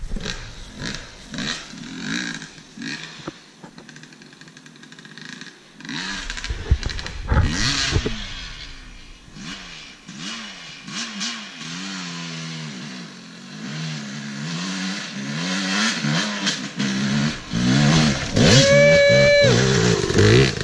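Yamaha YZ250 two-stroke dirt bike revving up and down again and again as it climbs over logs, getting louder as it comes closer. A held high rev near the end is the loudest part.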